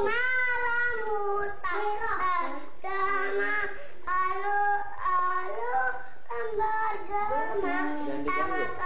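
A child singing a song in a high voice, in short phrases with brief breaks between them.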